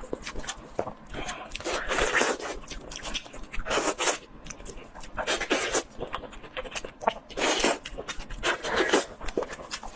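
Close-miked ASMR eating sounds: a person chewing and biting food, giving irregular clicks, smacks and short scraping bursts.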